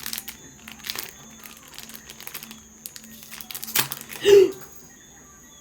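Packaging crinkling and rustling in short, irregular crackles as a pair of earrings is unwrapped and handled. About four seconds in there is a brief voiced sound.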